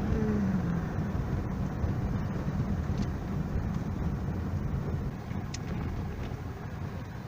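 A car driving along the road: a steady low engine and road rumble, easing slightly in level over the last couple of seconds.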